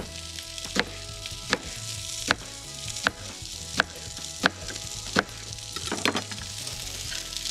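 Chef's knife slicing through an aubergine onto a plastic cutting board, a sharp knock with each cut at about one every three-quarters of a second, over the steady sizzle of vegetables grilling in a hot pan.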